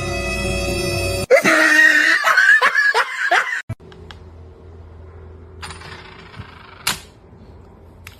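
Music with a steady held chord. About a second in it cuts off and gives way to a couple of seconds of loud laughter. Then come quieter room sounds with a single sharp click near the end.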